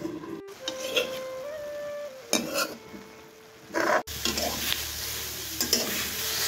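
Metal spatula stirring and scraping radish greens around a steel wok, clattering against the pan again and again, while the greens sizzle as they fry in oil.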